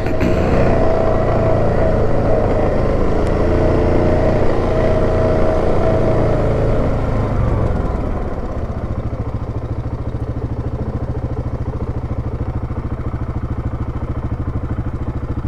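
Yamaha Grizzly 700 ATV's single-cylinder four-stroke engine running on the throttle, then easing off about seven or eight seconds in to an even idle.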